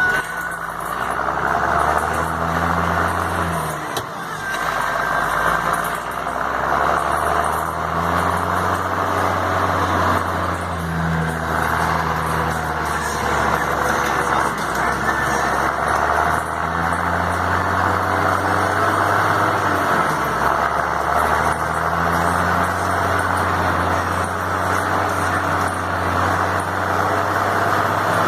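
John Deere 7515 tractor's diesel engine running steadily with a deep rumble. The engine note shifts briefly about four seconds in and again about twenty seconds in.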